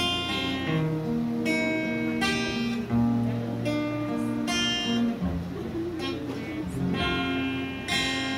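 Acoustic guitar strumming chords in a steady rhythm, playing the instrumental introduction to a worship song before the singing comes in.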